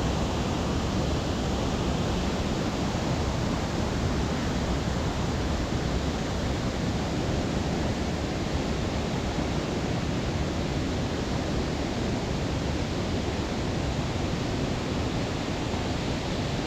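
Steady, unbroken rush of a waterfall and its white-water burn tumbling over rocky drops.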